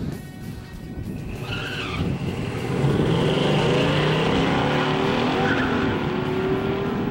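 AMC SC/Rambler's 390 V8 launching hard off the drag-strip line, its note rising under full throttle from about three seconds in. The rear tires squeal as they break loose at the launch.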